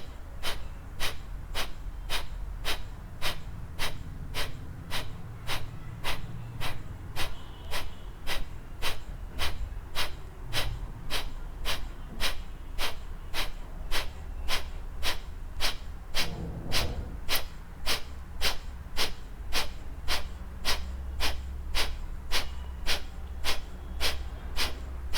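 Kapalabhati breathing: forceful, sharp exhalations through the nose, like clearing the nose, in an even rhythm of about two puffs a second.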